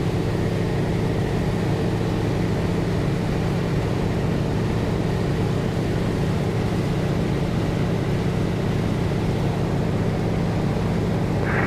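North American T-6 Texan's Pratt & Whitney R-1340 radial engine and propeller droning steadily in cruise, heard from inside the cockpit.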